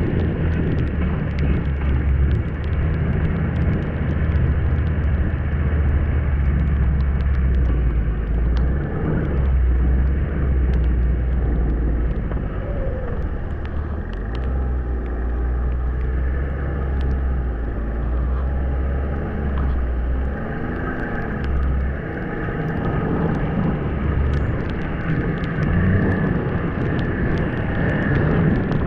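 Snowmobile engine running steadily as the sled rides along a trail. Its low drone drops away briefly a few times, with scattered sharp clicks throughout.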